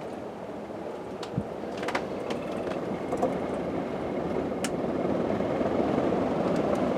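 1985 Casablanca Low Ceiling Series ceiling fan running, its blades stirring a steady rush of turbulent air, the wind fighting itself in the small room. It grows gradually louder, with a few light clicks.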